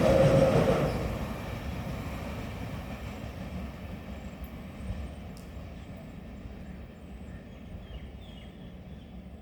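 A passenger express train's wheels rolling on the rails as the train moves away. The loud rumble dies down over the first second or two and leaves a faint low rumble that slowly fades.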